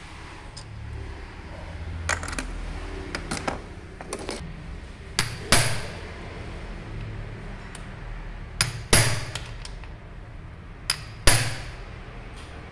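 Hammer blows on metal during the dismantling of a Bosch diesel injection pump: a few lighter taps, then three pairs of sharp strikes.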